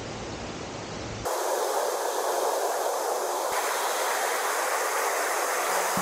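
Wind buffeting the microphone, then, about a second in, a sudden switch to the steady, even rush of a mountain valley stream.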